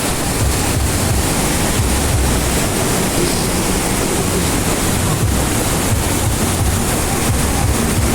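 Waterfall rushing in a steady, loud roar of falling water, with wind buffeting the microphone in uneven low rumbles.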